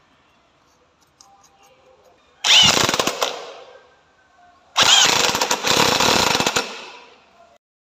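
A power tool run in two bursts, the first about a second long and the second about two and a half seconds, each starting sharply and tailing off. It is working on the scooter's automatic clutch assembly as it is fitted.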